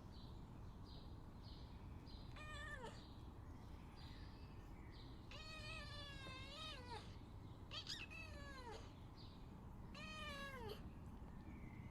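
A domestic cat meowing to beg, four separate meows a few seconds apart; the second is long with a wavering pitch and the others fall off at the end.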